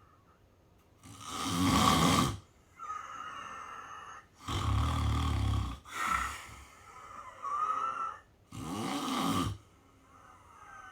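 A sleeping person snoring: three loud snores a few seconds apart, with quieter breathing between them.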